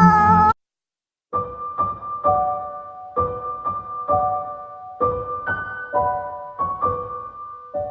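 A simple piano-like keyboard melody played one note at a time, about two to three notes a second, each note ringing briefly and fading. It starts about a second in, after the preceding sound cuts off and a short silence.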